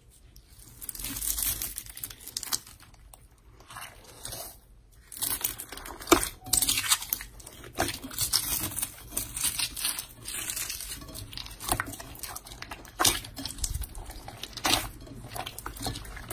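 Hands pressing, mixing and kneading gold slime full of tiny beads: a dense, irregular crackling and crunching with sharp pops as the slime is squeezed.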